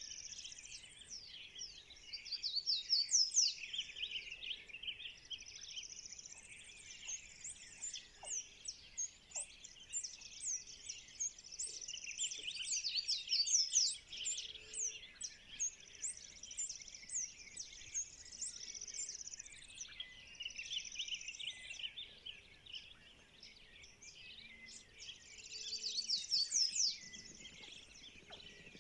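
A dawn chorus of many birds singing at once, with chirps and trills overlapping continuously. It swells louder about three seconds in, around the middle, and again near the end.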